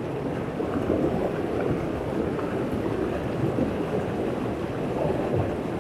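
Steady rushing noise of a flowing river, mixed with wind on the microphone.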